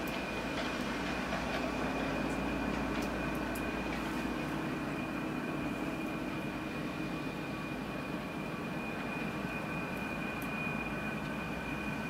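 Steady low mechanical rumble with a thin, unchanging high whine over it.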